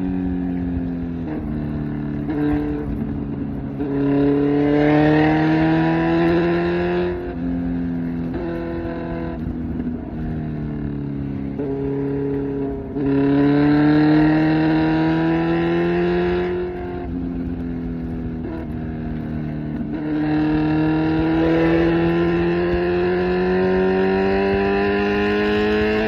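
Kawasaki Z900's 948cc inline-four through an SC Project exhaust, accelerating through the gears: the pitch climbs steadily in each gear and drops sharply at each upshift. Three louder full-throttle pulls come about four, thirteen and twenty seconds in.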